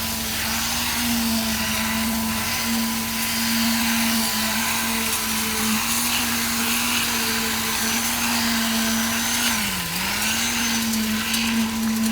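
A motor running steadily at one constant pitch over a noisy hum, dipping briefly in pitch about ten seconds in.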